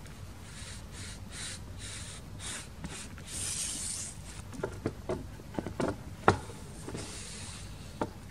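Kamishibai picture card sliding against the wooden theatre frame as it is pulled out: a run of short papery swishes, then a few sharp taps and knocks, the loudest about six seconds in.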